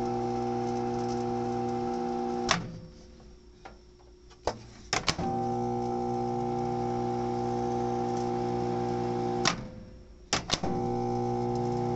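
MAXZEN 18L microwave running with a steady, multi-toned hum. Twice, a sharp click stops the hum. After a short quiet gap, two or three more clicks follow and the hum starts again, as when the door is opened and then shut and the oven is restarted.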